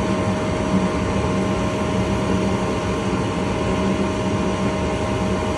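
Goodman gas furnace running steadily after a reset: a constant rush of air with a steady motor hum.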